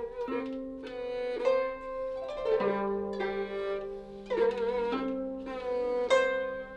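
Guzheng and yehu (coconut-shell fiddle) playing a slow Cantonese melody together: plucked zither notes struck every second or so under long bowed notes with vibrato.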